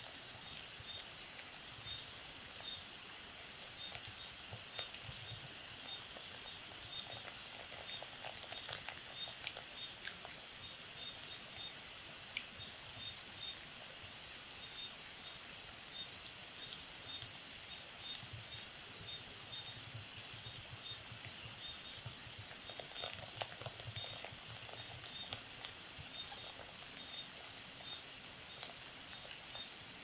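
Burning wood logs crackling, with frequent small, sharp pops over a steady hiss.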